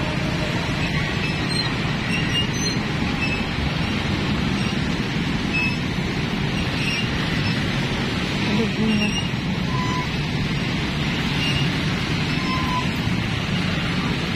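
Steady road traffic noise from motorcycles and cars passing.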